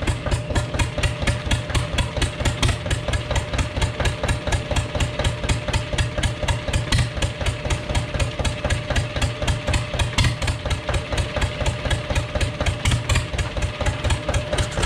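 Zetor 25 two-cylinder diesel engine idling with a rapid, even knocking beat on its first run after standing some 15 years; a thin steady whine runs alongside.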